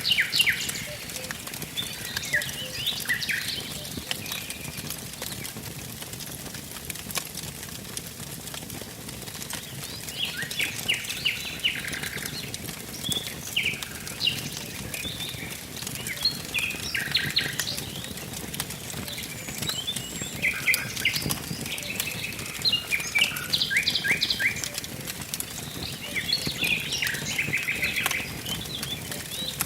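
Wood fire crackling with frequent small pops, under songbirds singing short repeated phrases that come and go in clusters.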